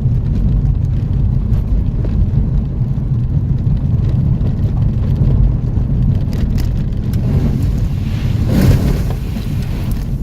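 A vehicle driving on a rough off-road track: a steady low rumble of engine and running gear, with a brief louder rush of noise about eight and a half seconds in.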